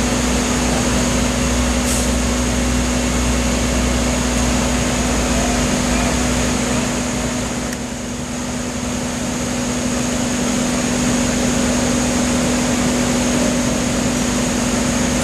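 Wood chipper running steadily with a constant engine hum and machine noise. Its level dips briefly about eight seconds in, then recovers.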